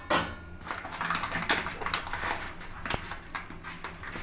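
Fennel seeds dry-roasting on a hot iron tawa over a gas burner: faint, irregular crackles over a steady low hum.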